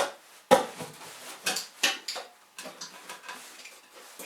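Metal clanks, knocks and scrapes as the sump pan is levered loose and lifted off an engine block. There is a sharp knock at the start, the loudest one about half a second in, and several more through the rest.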